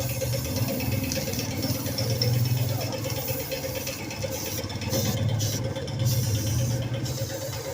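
An engine running steadily with a low hum that swells and eases every couple of seconds.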